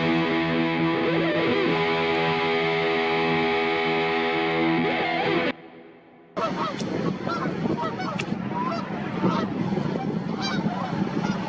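Background music with distorted electric guitar, which cuts off about halfway through. After a brief pause, a flock of geese honks, with many overlapping calls.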